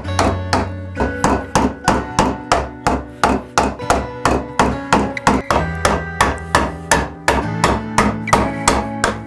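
Acoustic guitar music played in a steady picked rhythm of about three notes a second, its chords changing every couple of seconds.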